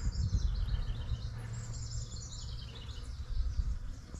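A songbird singing a run of short high notes that step down in pitch over about two and a half seconds, with another brief run near the end, over a steady low rumble.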